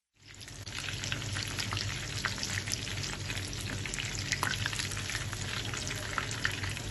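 Marinated chicken pieces frying in hot oil in a wok: a steady sizzle with many small sharp pops and crackles, fading in over the first second.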